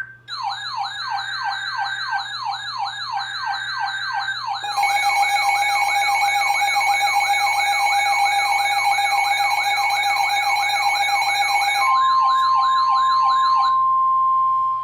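Weather alert radio's siren sounding for an incoming warning: a fast yelping wail whose pitch rises about three times a second. A second steady alarm tone joins it about five seconds in and drops out near the end. From then on a single steady warning alarm tone from the NOAA Weather Radio broadcast sounds on.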